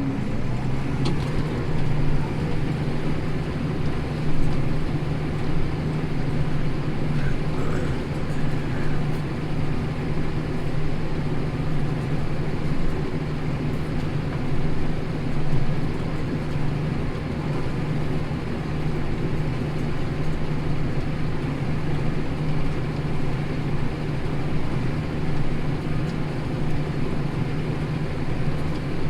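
Tractor engine running steadily under load, pulling a plough through stubble, with a constant low drone.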